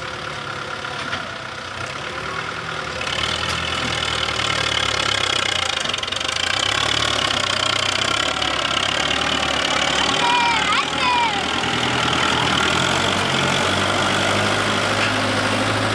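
Belarus 510 tractor's diesel engine running under load as it pulls a heavily loaded trolley, growing louder about three seconds in and then holding steady.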